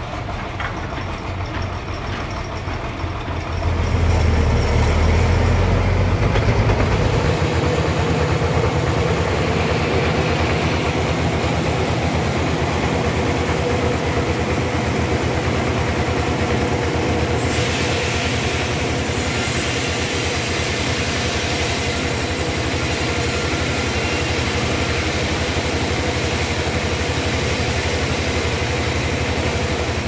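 Large band sawmill running: a steady mechanical drone of the drive and band blade, stepping up in loudness about four seconds in, with a brighter hiss joining about halfway through.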